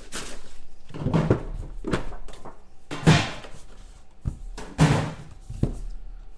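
Cardboard trading-card hobby box being handled and opened: a handful of knocks and thumps as the lid is pulled off and the box is set down on the table, the sharpest about three seconds in.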